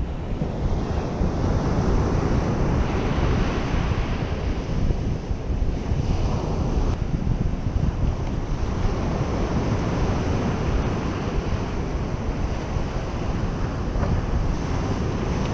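Gulf surf breaking and washing up the beach, under steady wind buffeting the microphone.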